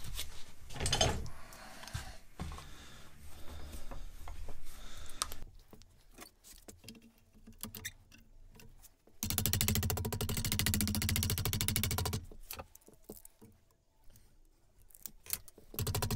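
Hand-forming thin aluminium sheet over a wooden form block: scattered clicks, taps and rubbing as the metal is bent and steel C-clamps are handled. About nine seconds in comes a dense, fast-pulsing sound lasting about three seconds, and it returns near the end.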